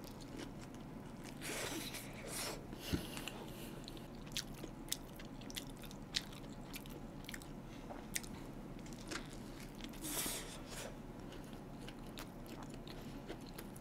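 Close-miked chewing of a toasted sandwich, heard faintly. It comes as scattered small mouth clicks and smacks, with a couple of brief soft hissy swells.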